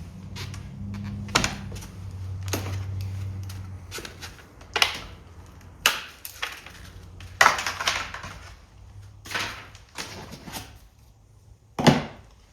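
Irregular rustles, clicks and knocks of packaging being handled and pulled off bicycle parts, with a sharper knock just before the end.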